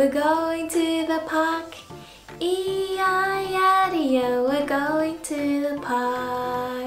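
A woman singing a children's song in a high voice, holding notes and gliding between them, over soft backing music.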